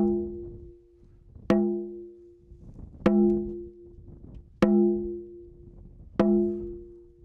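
A First Nations rawhide hand drum struck in a slow, even beat: five strikes about a second and a half apart, each ringing with a low tone and dying away. It is the opening beat of a creator song.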